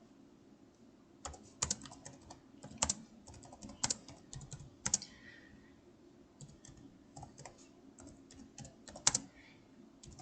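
Typing on a computer keyboard: irregular key clicks, a few a second, starting about a second in.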